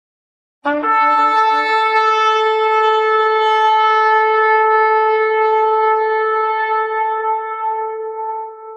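A shofar blown in one long blast: it sounds briefly on a lower note, then rises to a higher note held for about eight seconds, fading near the end.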